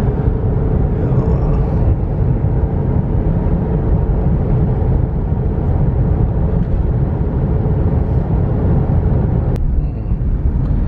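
Steady low rumble of a moving vehicle, with a faint steady hum that fades out about halfway through and a sharp click near the end.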